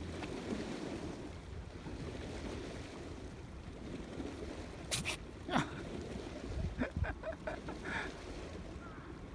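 Black stray cat sneezing: two sharp sneezes about halfway through, then a quick run of smaller ones, over a steady outdoor hiss. The sneezing is a symptom the owner suspects is cat flu.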